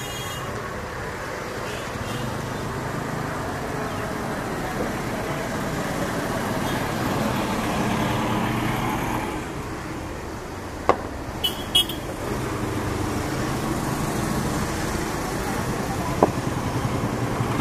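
Low, steady rumble of a distant Boeing 737-800's jet engines at taxi power, mixed with traffic noise. The rumble swells and eases a little, and two quick high toots come a little past halfway.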